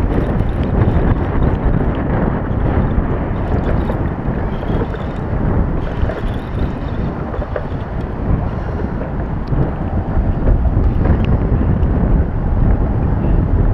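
Wind buffeting the GoPro's microphone: a loud, steady rumbling noise with a few faint clicks.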